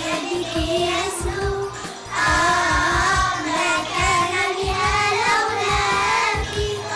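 Young children singing a song together over a backing track with a steady beat.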